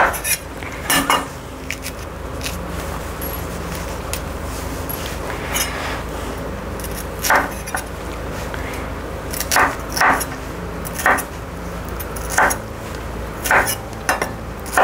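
A broad-bladed kitchen knife chopping a yellow bell pepper on a wooden cutting board: about a dozen sharp knocks of the blade on the board, unevenly spaced, often a second or more apart.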